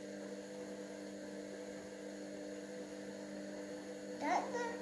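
A steady electrical hum made of several fixed tones, with a short child's voice sound, briefly rising in pitch, near the end.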